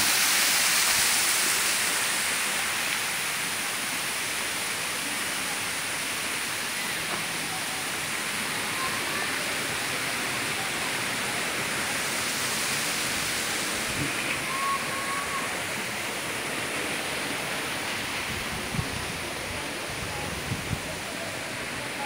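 Waterfall pouring onto rocks and a shallow pool: a steady rushing hiss that grows fainter over the first few seconds, then fades slowly. A few soft knocks near the end.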